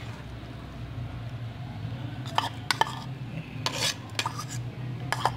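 A metal spoon scraping and clinking against a bowl as chopped onion mixture is scraped out, a string of sharp knocks and short scrapes starting about two seconds in, over a steady low hum.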